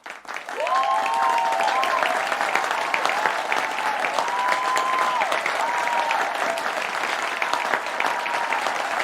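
Large crowd applauding and cheering, swelling up within the first second into dense, steady clapping, with several long whoops over it in the first half.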